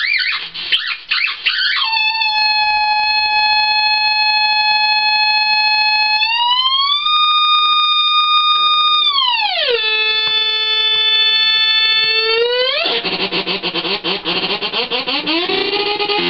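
Breadboarded Schumann Two Face fuzz circuit self-oscillating: a loud, steady buzzy tone whose pitch glides up, holds, falls to a lower note, then jumps back up. About three seconds from the end it turns into a ragged, sputtering fuzz.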